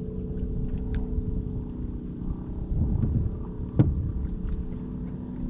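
A steady low motor hum made of several even tones, with a brief rustle of handling near the middle and one sharp click about two-thirds of the way through.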